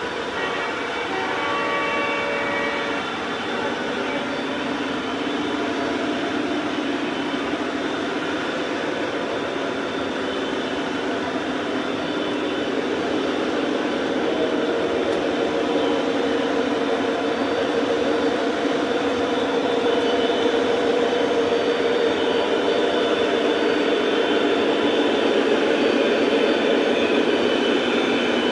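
O-gauge model auto carrier cars rolling steadily over the track, a continuous dense wheel rumble and rattle that grows slowly louder as the long train passes.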